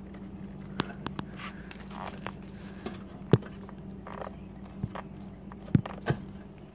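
Hands pulling the wire connectors off a scooter's ignition coil: scattered small clicks, scrapes and rustles, over a faint steady hum.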